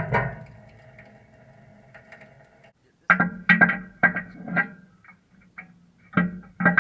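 Background guitar music: a chord rings out and sustains, then after a brief pause a run of plucked notes.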